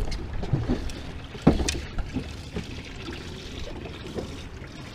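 Small waves lapping against the hull of a small fishing boat, with scattered light knocks and one sharper knock about a second and a half in.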